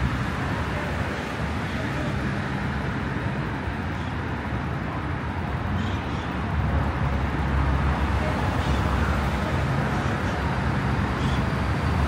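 Road traffic noise: a steady low rumble of passing vehicles that grows a little louder about halfway through.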